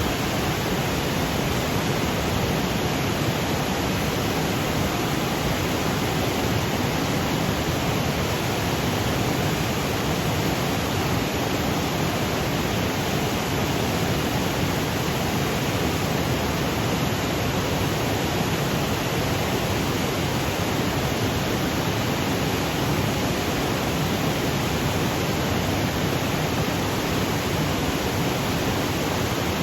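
Waterfall cascading over granite boulders: a steady, unbroken rush of falling water.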